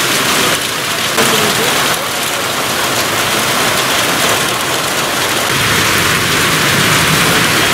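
Heavy rain pouring onto a wet paved road and trees, a dense steady hiss of falling water, its level shifting a few times in the first two seconds.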